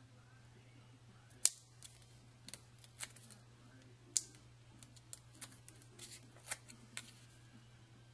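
Cardstock cutouts on foam adhesive dots being handled and pressed onto a scrapbook page: scattered light paper clicks and crackles, the sharpest about a second and a half in and again around four seconds.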